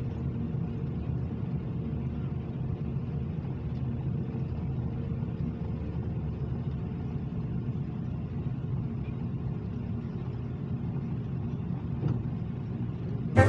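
Steady low rumble of an Airbus A330 heard from inside the passenger cabin just after pushback, with a faint steady hum that fades out about two thirds of the way through.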